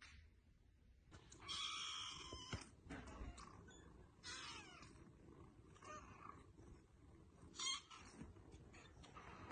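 A cat meowing several times, the first call the longest, with shorter high meows after it.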